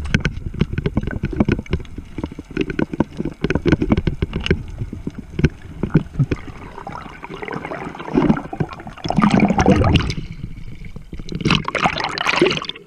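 Underwater sound heard through an action camera's housing: dense crackling clicks, then two surges of rushing water and bubbles in the second half.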